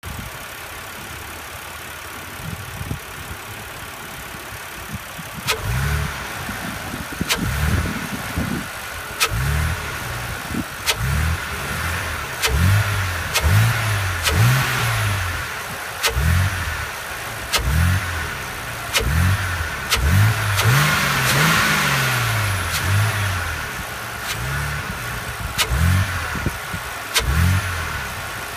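BMW E86 Z4 engine idling, then revved again and again in short throttle blips, each a quick rise and fall in pitch. A sharp click is heard at the start of each blip. This is the noise from the engine bay that is being recorded.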